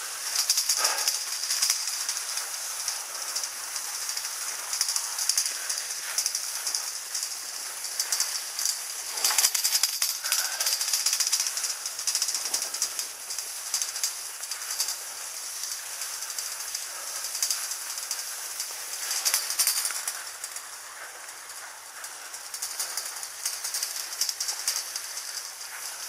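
Skis sliding and scraping over snow in a drag-lift track while being towed uphill: a steady high hiss with a dense crackle and a few louder swells.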